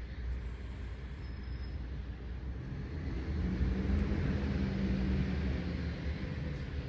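A vehicle passing: a low rumble with an engine hum that swells from about three seconds in, then fades.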